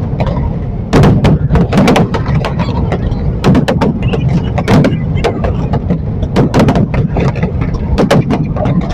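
Fireworks display: aerial shells bursting in a dense barrage, several sharp bangs a second at uneven spacing over a continuous low rumble.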